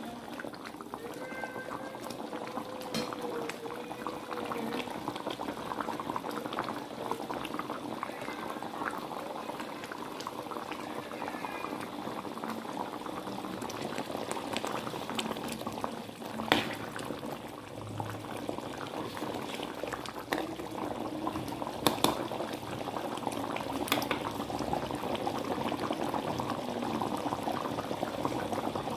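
A pot of food bubbling steadily at the boil. A few sharp clicks or knocks come about halfway through and again later.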